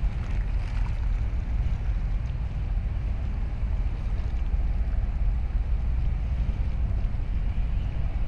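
Wind buffeting the microphone: a steady, irregularly fluttering low rumble with no distinct tones or events.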